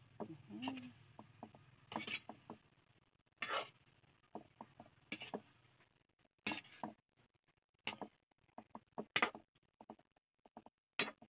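Metal ladle scraping and clinking against a wok as kangkong stems are stirred: irregular short knocks and clinks, with a few longer scrapes.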